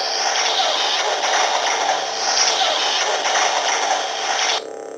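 Toy lightsaber playing its blade lock-up sound effect: a loud, harsh sizzling noise over the blade hum, cutting off suddenly near the end and leaving the steady hum.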